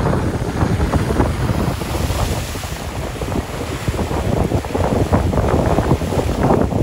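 Wind buffeting the microphone over sea surf breaking against concrete tetrapods and boulders on a rocky shore; a heavy, uneven rumble.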